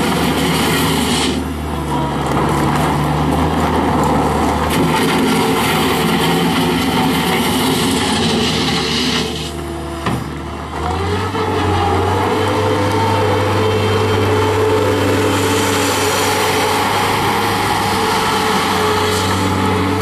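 New Holland LS170 skid steer's four-cylinder turbo diesel engine running under throttle as the loader drives and turns. The sound briefly drops off twice, then settles at a higher engine speed past the middle.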